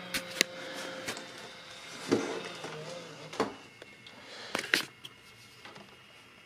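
Handling noise from a plastic VHS-C camcorder, an RCA Small Wonder CC614, as it is picked up and turned in the hand just after its tape has been pushed in: about five sharp clicks and knocks spread through, with a faint steady hum under the first second.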